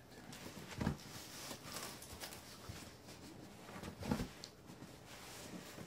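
Cardboard rustling and scraping as a hand works the flaps of a corrugated shipping box open and reaches inside, with two dull knocks, about a second in and about four seconds in.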